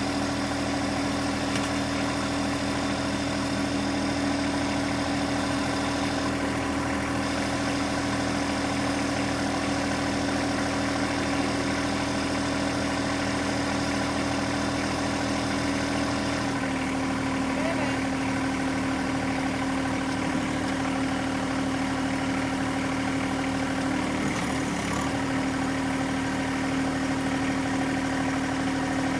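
John Deere 1025R compact tractor's three-cylinder diesel engine running steadily, its tone changing a little about halfway through.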